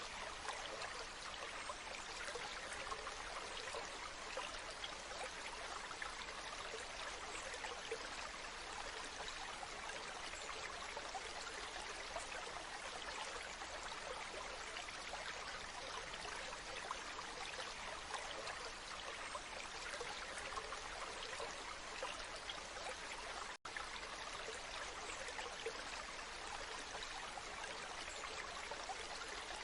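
Waterfall: falling water rushing and splashing in a steady, even wash, with a split-second break in the sound about two-thirds of the way through.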